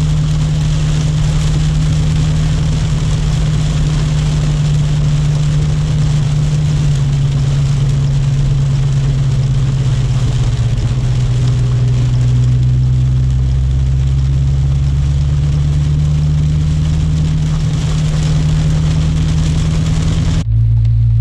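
Dodge Hellcat's supercharged 6.2-litre Hemi V8 running steadily while the car drives on a rain-wet road, over a steady hiss of tyres on wet pavement. The engine note drops in pitch in steps about 7 and 11 seconds in.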